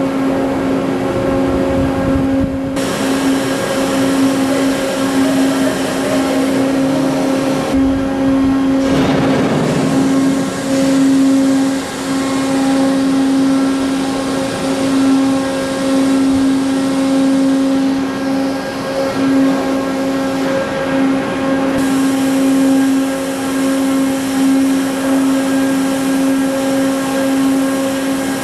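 Heavy machinery running with a loud, steady pitched hum over a rumbling mechanical noise; the background noise shifts abruptly a few times.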